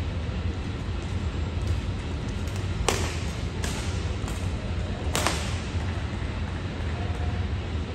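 Badminton rackets striking a shuttlecock: four sharp hits between about three and five seconds in, over a steady low hum of the hall.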